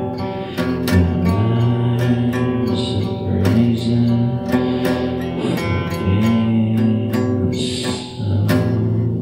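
A blues song on strummed acoustic guitar, with a low voice singing long, bending notes.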